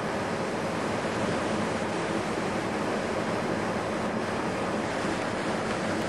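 Steady, even rushing noise with no distinct sounds standing out.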